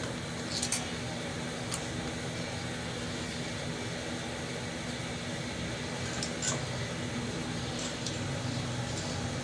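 Steady background hum, like a fan, with a few sharp light metallic clicks of a hand tool against the embroidery machine's back shaft and bearing housing as the bearing is worked on.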